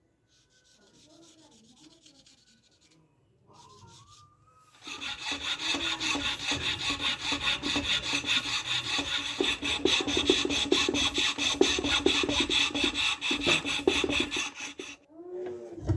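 A tool rasping rapidly and steadily against wood or metal, with short fainter scrapes before it starts in earnest about five seconds in; it stops just before the end.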